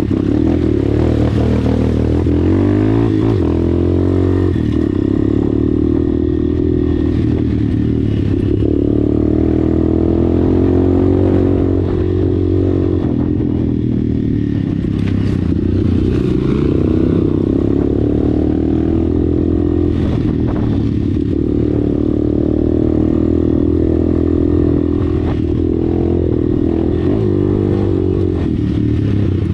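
Dirt bike engine running under load on rough trail, its revs rising and falling as the throttle opens and closes, with occasional clatter from the bike over the rutted ground.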